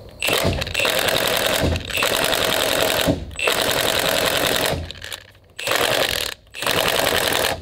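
Milwaukee M18 cordless impact driver hammering in about five bursts with short pauses as it backs out the case bolts on a Kohler Command engine.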